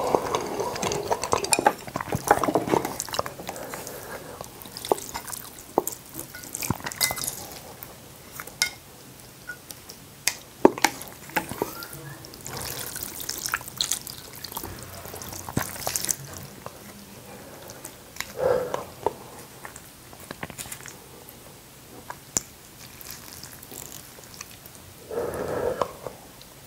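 Close-miked eating of ramyeon noodles in seaweed soup: broth dripping as noodles are lifted with chopsticks, sharp clicks of chopsticks against the bowls, and a few short slurps.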